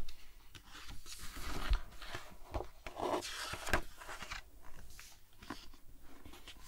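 A page of a large hardcover picture book being turned by hand: crisp rustling and crackling of the paper, loudest in the first few seconds, then a softer brushing as the hand settles on the new page.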